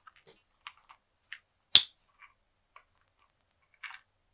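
A knife blade prising at the lid of a small, very tight box: scattered light clicks and scrapes, with one sharp, loud click a little under two seconds in and a short scrape near the end.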